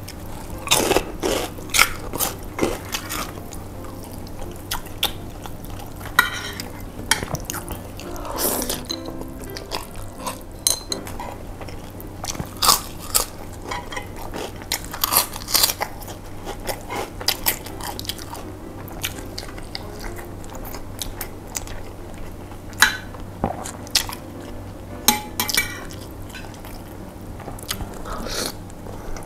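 Close-up eating sounds: crunching on fried crackers and chewing mouthfuls of noodles, with many short, sharp crunches scattered throughout.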